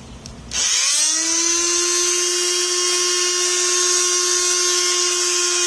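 Electric power sander switched on about half a second in, winding up quickly and then running at a steady high whine.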